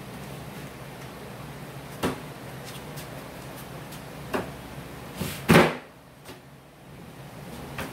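Wooden knocks and clunks from a plywood-and-2x4 collapsible workbench being handled. Two single sharp knocks are followed by a louder double clunk about five and a half seconds in.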